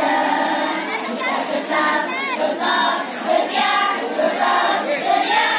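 School choir of young teenage students, mostly girls, singing together.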